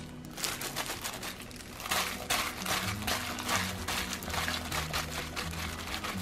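A hand in a plastic disposable glove tossing cut cucumber pieces in red chili-paste dressing in a glass bowl. The glove crinkles and the pieces squish in the sauce, in a quick run of rustling strokes that starts about half a second in.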